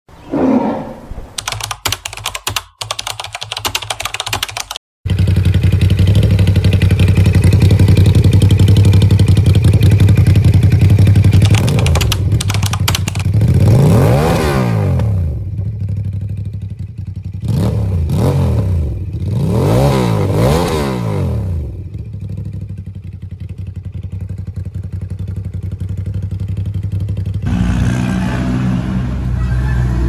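Ducati SuperSport's L-twin engine running through an Austin Racing (AR) aftermarket exhaust: a steady deep idle, then three quick throttle blips that rise and fall in pitch near the middle before it settles back to idle. A few seconds of irregular clicking and clatter come before the engine sound.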